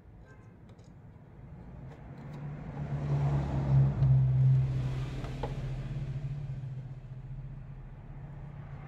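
A motor vehicle passes by, its steady engine note swelling to a peak a few seconds in and then fading away. A few light clicks come near the start.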